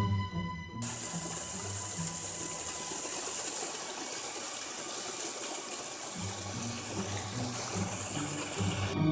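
Small waterfall splashing down a rock face: a steady rush of falling water that comes in about a second in, with low music notes underneath.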